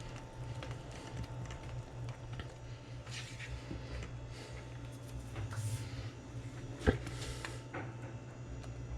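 Kitchen handling noises: scattered soft clicks and brushing sounds of utensils and dishes, with one sharp knock about seven seconds in, over a steady low hum.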